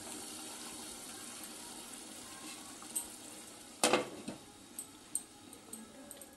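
Creamy paneer gravy simmering in a non-stick frying pan with a steady bubbling sizzle. A little past halfway, a glass lid is set down on the pan with a sharp clink, followed by a few lighter ticks.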